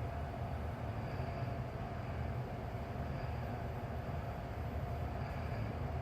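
Mitsubishi Accel-AI rope-traction elevator car travelling downward between floors: a steady low rumble of the moving car with a faint steady whine.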